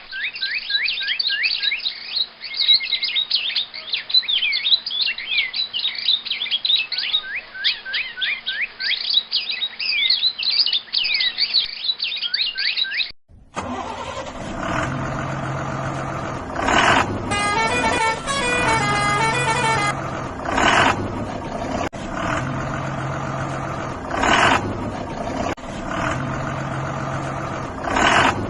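Birds chirping rapidly with many quick high notes. About 13 seconds in this cuts off suddenly to a vehicle running steadily, with short horn blasts every three to four seconds and a warbling, tune-like tone for a couple of seconds partway through.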